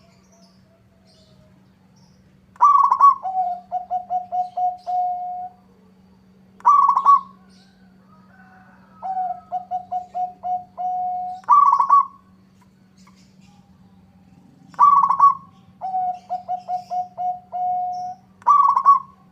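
Zebra dove (perkutut) cooing in repeated phrases: each opens with a loud higher note, then a quick run of lower clipped notes ending in a held note. A phrase comes every few seconds, and one run near the middle is softer.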